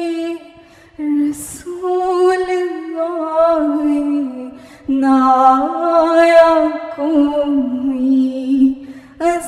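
A woman singing an Urdu naat, a devotional poem in praise of the Prophet Muhammad, unaccompanied, in long held notes with melodic ornaments. There is a short pause about a second in.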